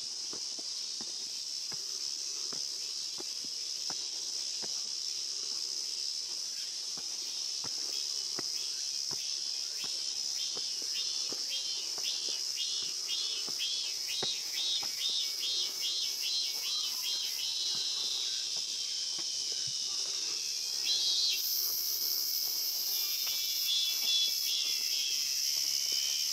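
A steady, high summer insect chorus fills the forest, with a second insect pulsing rapidly in the middle and a louder, higher buzz joining about two-thirds of the way through. Under it come soft, evenly paced footsteps on the stone path.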